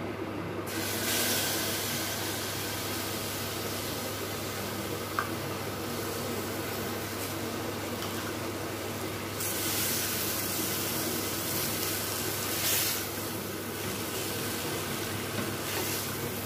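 Coconut milk sizzling as it hits hot butter-roasted shredded coconut in a saucepan, starting under a second in, while a silicone spatula stirs it through. The sizzle grows louder about halfway through.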